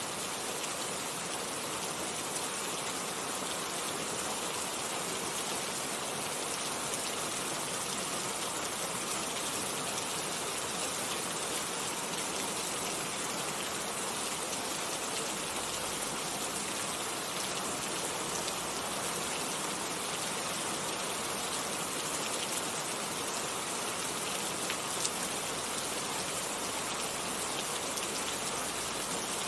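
Steady rain falling, an even hiss with scattered drop ticks on surfaces.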